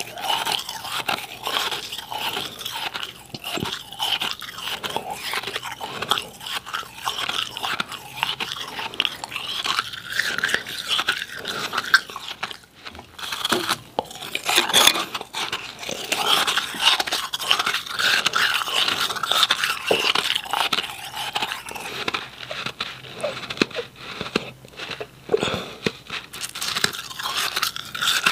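Close-miked biting and chewing of powdery refrozen ice: a dense run of crisp crunches, broken by a short lull about halfway through, then a loud bite.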